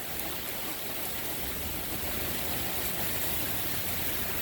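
Heavy rain pouring steadily in a strong wind, with the wind rumbling low on the microphone.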